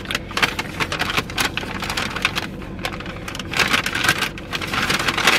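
Paper takeout bag crinkling and rustling as it is handled close to the microphone, a dense run of crackles.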